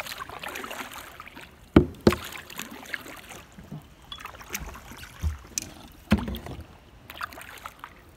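Kayak paddle strokes dipping and dripping in calm water, with a few sharp knocks: two about two seconds in and one about six seconds in.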